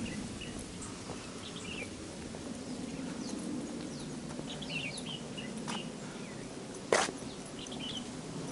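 Birds chirping in short, scattered calls over footsteps on a wooden plank boardwalk, with one sharp, loud click about seven seconds in.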